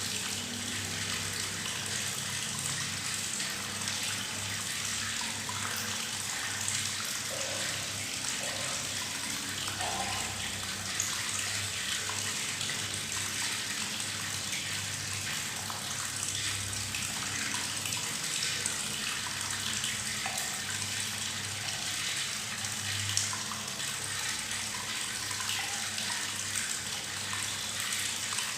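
Tap water running steadily into a bathtub, splashing and gurgling with bubbles, with small bubbly gurgles now and then over the even rush.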